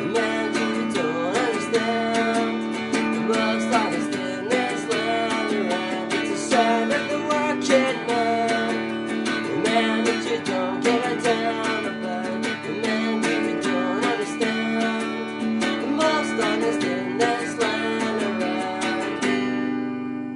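Acoustic guitar strummed steadily, with a last chord left ringing and fading near the end.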